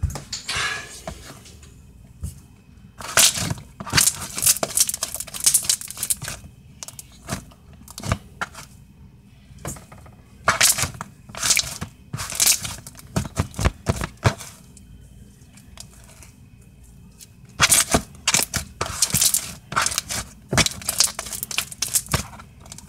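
Crunchy, clicky slime being squeezed and stretched by hand, crackling and popping in quick clicks. The clicks come in runs of a few seconds with short pauses between.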